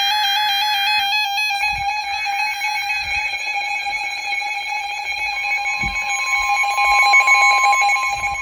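NOAA Weather Radio emergency alert tones announcing a severe thunderstorm warning. A stepping, warbling electronic tone runs for about the first second and a half, then gives way to a steady alarm tone. A second, higher tone joins about five seconds in.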